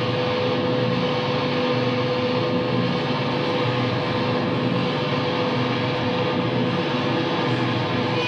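A live band's dense, steady wall of distorted guitar drone: a chord held without drums, with one strong sustained note standing out.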